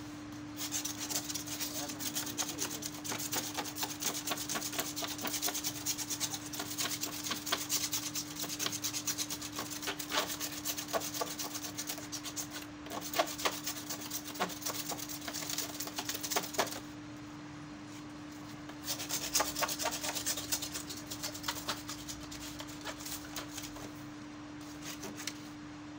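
Rapid scratching and scraping on the plastic louvre slats of an air cooler's front grille as caked dirt is scraped out, in quick dense strokes with a pause of about two seconds two-thirds of the way through and fainter scraping near the end. A steady low hum runs underneath.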